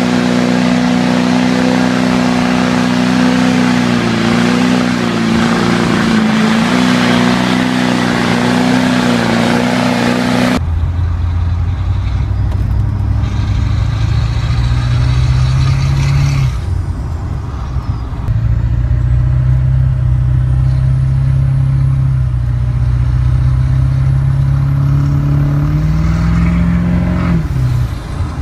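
Chevrolet Duramax LB7 6.6-litre turbodiesel V8 held at steady high revs with heavy noise. After an abrupt cut it is heard from inside the cab, accelerating: the pitch climbs, drops at a gear change about 16 seconds in, climbs again and falls away near the end.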